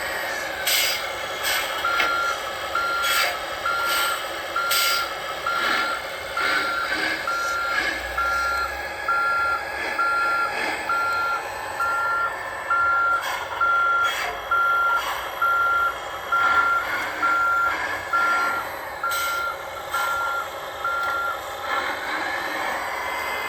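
Reversing beeper of an RC model vehicle's sound module, a series of about twenty short, evenly spaced beeps at about one a second, over a steady motor whine that drops in pitch at the start and rises again near the end. Scattered clicks sound throughout.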